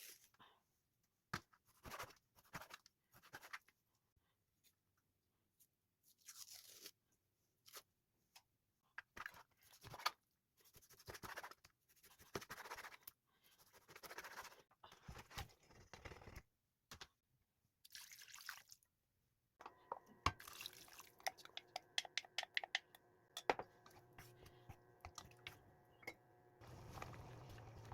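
Short bursts of crinkling and rustling with silent gaps between them, like plastic food packaging being handled, with some clicks; a low steady hum comes in near the end.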